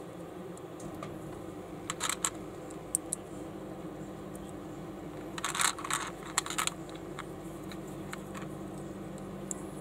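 Plastic building bricks clicking and rattling as they are handled and pressed together by hand: a few sharp clicks about two to three seconds in, then a quick cluster of clicks around the middle, over a steady low hum.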